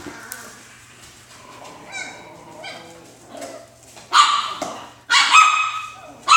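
Alaskan Klee Kai puppies barking at play: a few soft yips about two to three seconds in, then two loud, high-pitched barks about four and five seconds in, and another starting at the very end.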